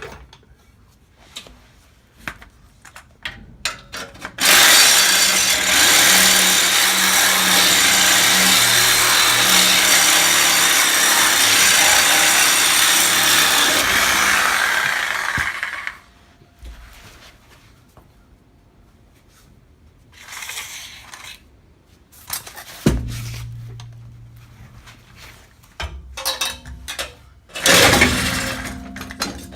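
A power tool cutting through steel exhaust pipe at the muffler, running steadily for about ten seconds, with scattered metal knocks and clanks before and after the cut.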